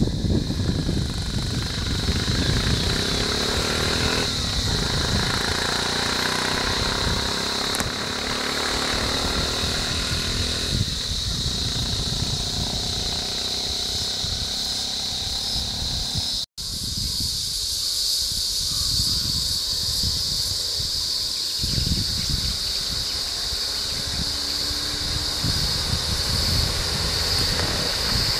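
Roadside outdoor ambience: wind buffeting the microphone, vehicle engines running nearby, and a steady high-pitched drone throughout. The sound drops out briefly just past halfway, and the drone comes back slightly higher.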